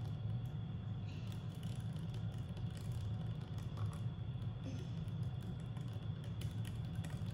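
A plastic straw stirring sugar into lemonade in a plastic cup, ticking lightly and irregularly against the cup's sides, over a steady low hum.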